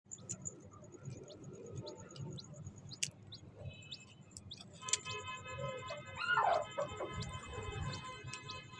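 Newborn chicks peeping: many short, high, falling chirps throughout. Background music with sustained tones comes in about halfway through.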